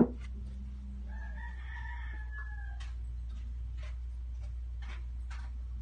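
A rooster crowing once in the background, a single drawn-out call of about a second and a half starting about a second in and dropping in pitch at its end. A sharp click right at the start and scattered light clicks, over a steady low hum.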